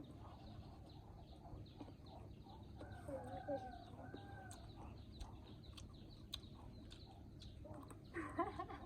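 Faint chickens clucking in short bouts, about three seconds in and again near the end, over a low steady background hum.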